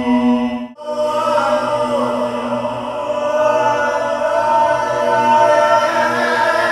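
Improvised chant-like singing layered through a live-looping station: several sustained vocal tones stacked over one another. The sound drops out for an instant about a second in, then returns as a denser layer of held and gliding voices that swells toward the end.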